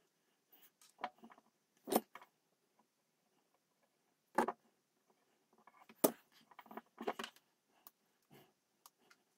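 Scattered short clicks and taps of small tools and parts being handled on a workbench while wires are soldered onto a small step-down converter, a handful of separate knocks a second or two apart with faint rustling between.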